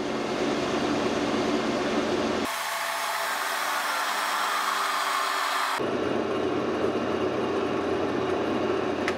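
Benchtop drill press with variator-type pulleys running near its top speed of about 2,700 RPM, then slowed down. A stretch in the middle is played back three times faster and sounds higher. A click at the very end as the off button is pressed, and the motor begins to wind down.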